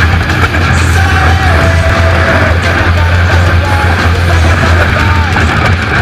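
Loud rock music with shouted vocals.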